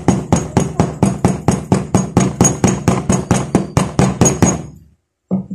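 Light, quick hammer taps, about five a second, on a PVC pipe used as a driver to press a new bushing into an electric fan's metal bushing holder. The tapping goes around the rim so the bushing seats evenly, and stops shortly before the end.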